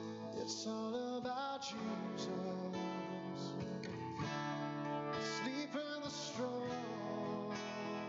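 A song led by a strummed acoustic guitar, with other instruments playing along.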